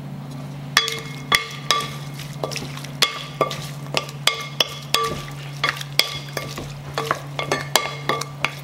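Wooden spoon tossing a shrimp and herb salad in a glass mixing bowl: about two knocks a second as the spoon strikes the glass, each ringing briefly, over a steady low hum.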